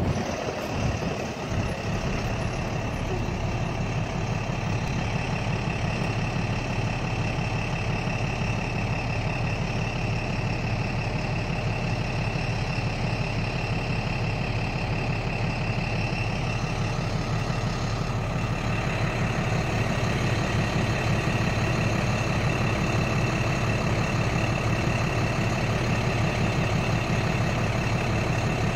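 Large truck's engine running steadily with a low hum, heard from inside the cab.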